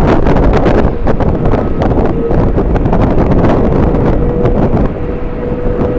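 Strong wind buffeting the microphone: a loud, gusty rumble. A faint steady hum comes in briefly about two seconds in and again from about four seconds on.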